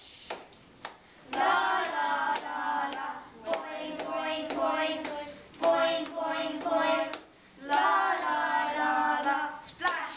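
A group of children singing held notes together in three phrases, with short breaks about three and seven seconds in. A clap or tap keeps time underneath, about twice a second.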